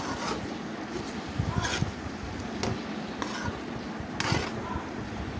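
Metal spatula scraping and knocking against a metal kadai as brinjal fry is stirred, a handful of separate scrapes and taps spread through.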